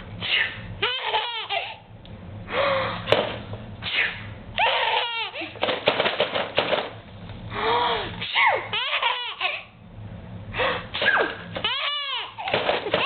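Baby laughing in several bouts of high-pitched, breathy giggles, each bout a quick run of rising-and-falling laughs, with short pauses between.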